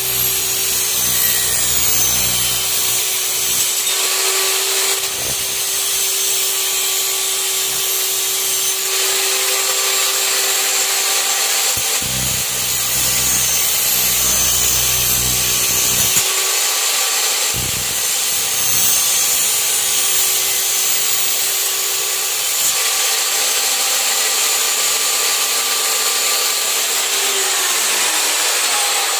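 Electric chop saw running and cutting square metal tubing: a steady motor whine under the hiss of the blade biting through the metal.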